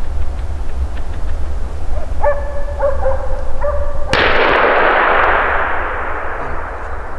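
A hunting dog barking in a short run of barks, then, about four seconds in, a single sudden rifle shot whose echo rolls on and fades over about three seconds. The barking is the hound that has found game.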